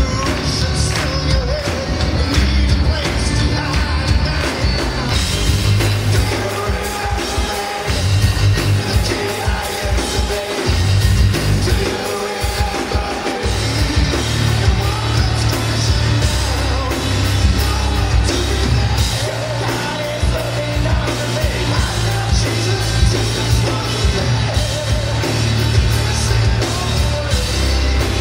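Live cello metal: amplified cellos and a drum kit, with a male lead singer. The heavy bass drops out in a few short breaks near the middle.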